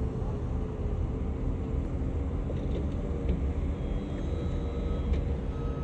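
Steady low rumble of road traffic, with a faint engine hum on top.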